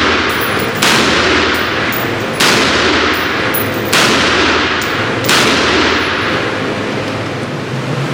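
Four gunshots about a second and a half apart, each followed by a long, fading echo.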